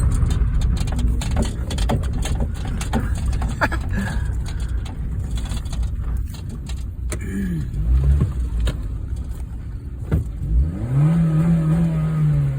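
Honda Fit's engine running with many knocks and rattles in the first half, then revved: a short rise and fall about seven seconds in, and a rev held steady for about two seconds near the end before it drops back.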